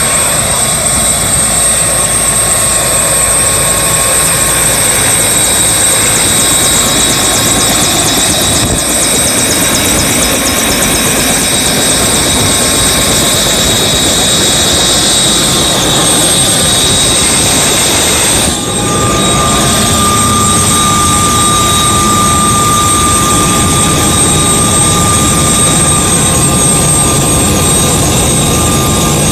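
Bell 206B JetRanger helicopter in flight: the single Allison 250 turboshaft and rotors give a steady loud noise with a high turbine whine over it. About two-thirds of the way through the sound dips briefly, and the whine then sits slightly higher.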